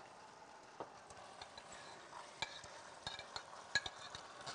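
Steak cooking in sauce in a frying pan, sizzling faintly, while a utensil stirs and scrapes it, with sharp clinks against the pan that come more often in the second half.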